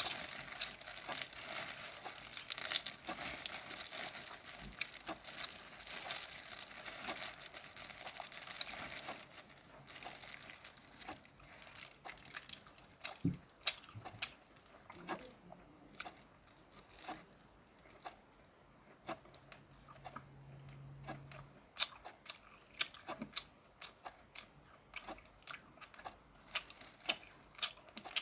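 Steamed shrimp being shelled and eaten close to the microphone. Dense crackling of shells comes first, for about nine seconds, then quieter chewing with scattered crunches and clicks.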